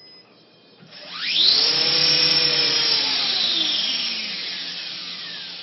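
Electric motor of a 450-size RC helicopter, driven through an EXI speed controller, spinning up on the bench: a whine rises sharply in pitch about a second in, holds high for a couple of seconds, then falls slowly as the rotor head spins down.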